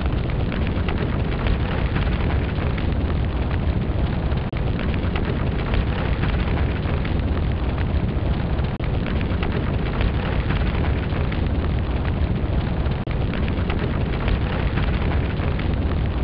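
Sound effect of a large fire burning after an explosion: a steady, deep rumble of flames that does not let up.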